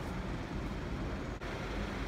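Steady outdoor street background noise with a low rumble and an even hiss, and a brief dip about one and a half seconds in.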